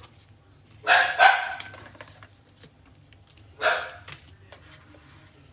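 A dog barking in sharp single barks: two in quick succession about a second in, and another shortly before four seconds. Faint light clicks and taps come between the barks.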